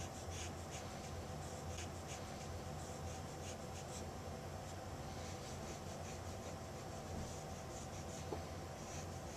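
Scratchy strokes of a colouring tip rubbing green tint onto a photographic print, about two a second, lighter after the halfway point, over a steady low hum.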